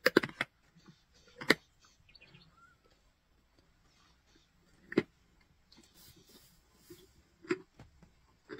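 Male lions feeding on a zebra carcass, with short, sharp crunching and tearing sounds as they bite into bone and flesh. There is a quick cluster of crunches at the start, then single ones about a second and a half in, at about five seconds, and twice near the end.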